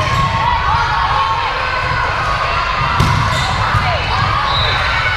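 Volleyball gym ambience: voices and crowd chatter, sneakers squeaking on the court floor, and the ball being struck, with sharp hits at the start and about three seconds in.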